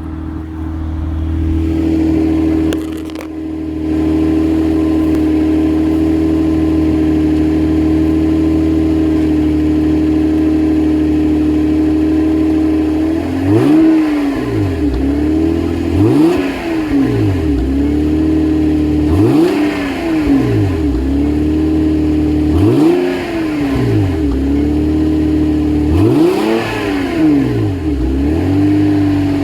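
Naturally aspirated Toyota Supra engine idling steadily, then revved five times in the second half, each rev rising and falling back to idle.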